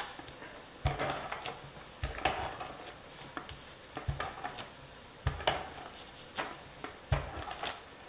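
A paper cut-out and a small hand-held craft tool being handled on a table: a string of irregular light taps and clicks, about nine in all.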